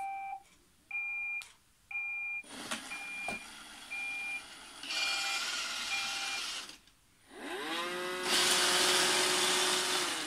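iRobot Roomba 786 robot vacuum beeping: three clear beeps about a second apart, then softer beeps about once a second over a running hum. About seven seconds in it goes quiet briefly, then its motors spin up with a rising whine and settle into steady running with a loud hiss.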